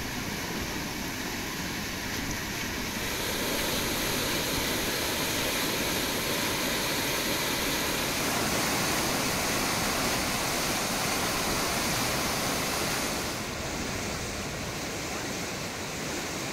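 Muddy flash-flood water from the hills rushing and churning, a steady noise of fast turbulent water. It grows louder and brighter about three seconds in and drops back about three seconds before the end.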